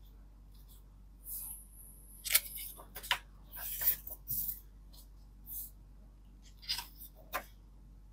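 A special-edition hardcover book and its packaging being handled: intermittent paper and card rustles with soft taps and clicks, in short clusters near the middle and again near the end.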